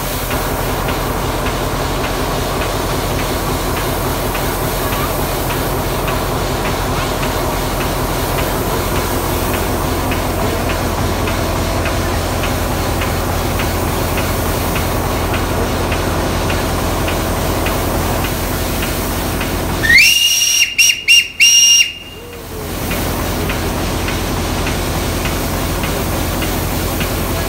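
Steady hissing of steam escaping from a standing steam locomotive, TCDD 56548. About 20 seconds in, a shrill whistle rises in pitch and then sounds in a quick run of four or five short blasts over about two seconds, after which the hiss carries on.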